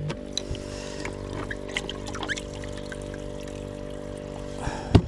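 Water splashing and trickling as a hand rummages in a bait cooler, over the steady hum of a small 12-volt aerator air pump. A sharp knock comes near the end.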